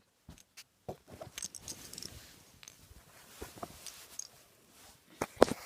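Scattered light clicks and rustling of small plastic Rubik's Cube pieces being handled, with a few louder clicks near the end.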